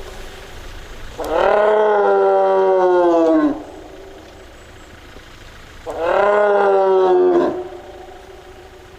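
Amur tiger calling: two long, loud, tonal calls about two seconds each, a few seconds apart, each dropping in pitch as it ends.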